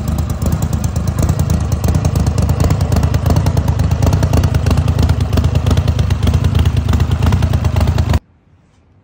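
Turbocharged Mudbuddy HDR 5000 EFI mud motor running loud and steady with a fast even firing pulse, cutting off suddenly about eight seconds in.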